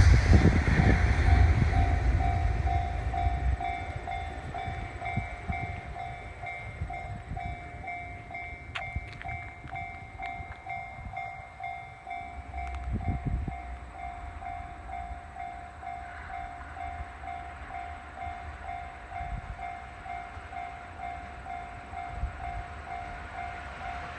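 A 205-series electric train running past a level crossing, its rumble fading away over the first few seconds. Throughout, the crossing's warning bell rings on with an even, repeating ding.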